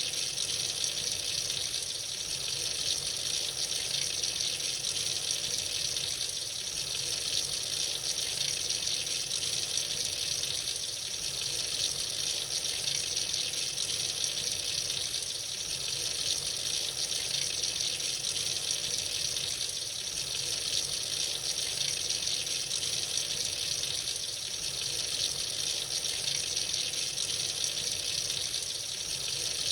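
Tap running freely into a sink: a steady, even hiss of flowing water.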